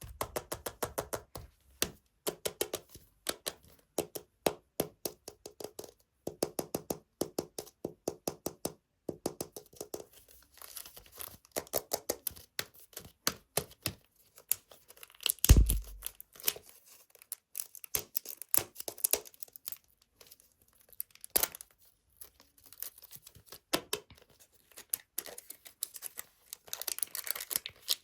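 Blind-bag toy packaging being torn open and crinkled in quick runs of crackling strokes, with one louder dull thump about halfway through.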